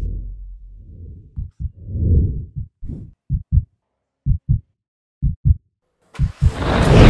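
Deep heartbeat-like thumping, in pairs about once a second. Near the end, an air-cooled Porsche 911 Turbo flat-six is started with the ignition key and comes in loud.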